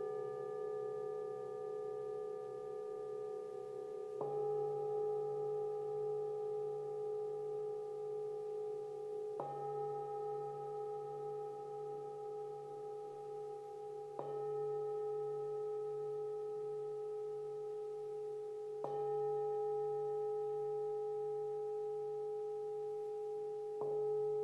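Metal singing bowls struck one at a time with a wooden mallet, five strikes about five seconds apart. Each strike starts a clear, sustained ringing tone that overlaps the ringing of the last, with a slow wavering beat.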